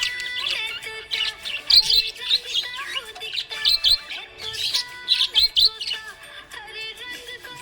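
Budgerigar chirping and warbling in quick clusters of high chirps, over background music.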